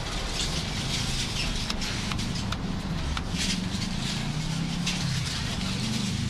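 Cleaver chopping crispy roast pork belly on a wooden chopping block: irregular knocks of the blade through the crackling into the board. A steady low hum runs underneath.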